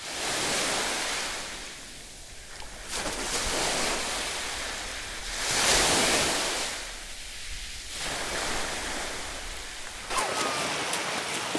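Small sea waves washing in the shallows, swelling and fading every few seconds. Near the end come splashes of feet running through shallow water.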